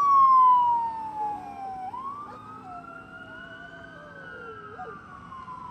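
Fire apparatus electronic sirens on a slow wail, the pitch sliding down, climbing back up and falling again, with a second, fainter siren wailing out of step beneath it. The sirens fade quickly in the first couple of seconds as the vehicles pull away.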